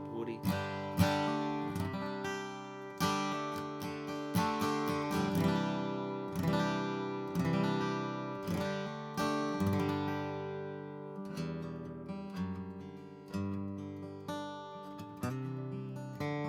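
2001 Gibson J-45 acoustic guitar with D'Addario EJ16 phosphor bronze light strings, played with a pick: strummed chords and picked notes about once a second, each ringing out and fading. A sweet, mellow, woody tone.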